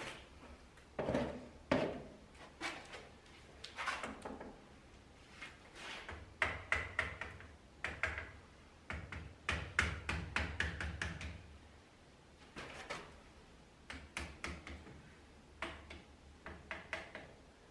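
Irregular knocks, taps and short scrapes of hand work, with clusters of quick strikes about six seconds in and near the end, over a faint low hum.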